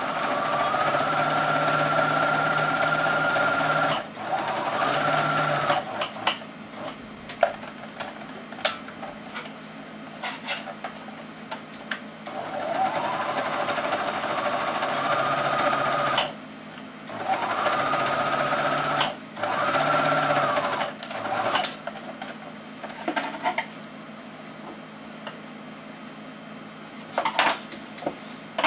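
A small electric sewing machine stitching a seam through two layers of cotton fabric in five separate runs, each starting with a rise in pitch and stopping abruptly, with clicks and fabric handling between the runs. Near the end only a few light knocks are heard.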